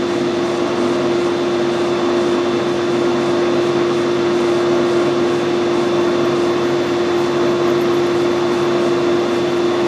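Metal lathe running steadily under power while a tap cuts an oversized 8 BSP thread, with a steady hum and a single held tone throughout.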